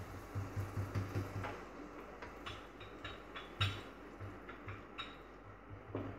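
A kachori deep-frying in oil in a kadai, with a faint steady sizzle and scattered crackles. A wire-mesh skimmer clicks and scrapes against the pan as it presses the puffing kachori into the oil.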